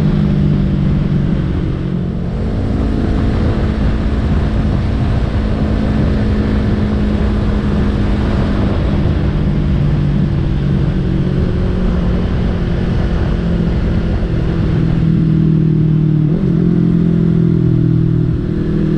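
Yamaha YZF-R3 parallel-twin engine running at steady highway cruising speed under the rider, with wind and road noise rushing over it. The engine note eases briefly about two seconds in and shifts pitch near the end.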